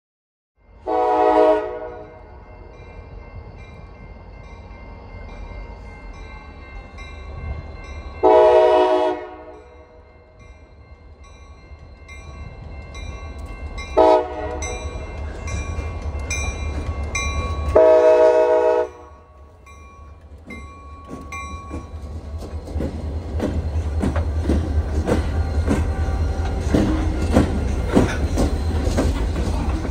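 Diesel freight locomotive's air horn sounding the grade-crossing signal: two long blasts, a short one, then a long one. After that the train's rumble and the clacking of its wheels and cars grow steadily louder as it gets under way.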